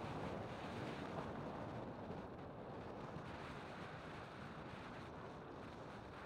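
Steady, faint wind rush and road noise from a vehicle travelling along a paved road.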